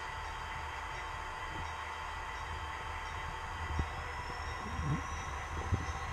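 Model train running along its track, heard from a camera riding on one of its cars: a steady whir and hum with a faint high whine, joined by a few short clicks and knocks in the last two seconds.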